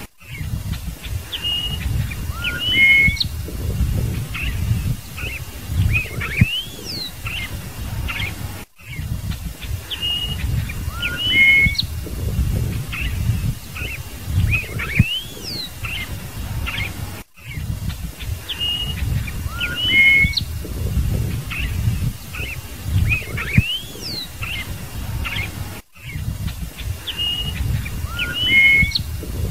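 Scarlet-headed blackbird singing: clear whistled notes and rising slurs in a phrase that repeats about every eight and a half seconds, with a brief dropout between repeats. A low rumble runs underneath.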